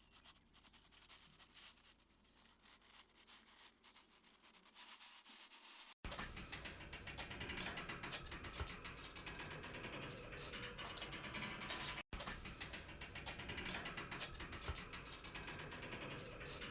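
A faint patter of scattered small clicks. It gives way, at a hard cut about six seconds in, to a dense scratchy crackle of many small clicks and rubbing. That crackle is broken by another brief cut near twelve seconds.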